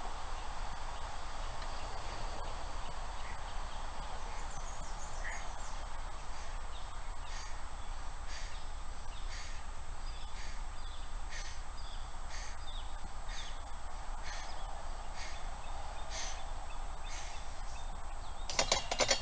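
Exercise weights knocking lightly about once a second during repetitions, over a steady low hum, with a short burst of louder clattering knocks near the end.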